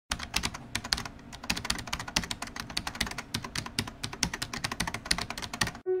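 Computer keyboard typing: rapid, irregular key clicks that stop suddenly just before the end.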